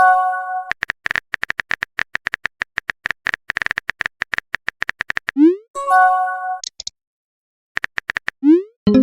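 Messaging-app sound effects: long runs of rapid typing clicks, each followed by a short rising whoosh as a message is sent and a brief chime of notes as one arrives. The cycle comes twice, with about a second of silence between.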